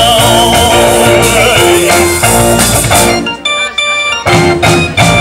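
Live band music from a drum kit and an electronic keyboard with an organ-like sound. About three seconds in the full playing thins out to sparse held keyboard chords broken by single drum hits.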